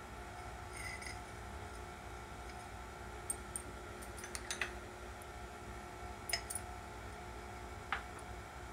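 A few faint, scattered clicks of a metal spoon touching a glass tumbler while syrup is drizzled down its inside, over a low steady hum.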